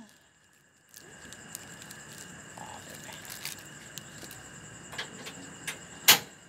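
Scattered small clicks and rustles of small packets and utensils being handled at a counter, with one sharp click near the end. Under them runs a steady high drone of night insects.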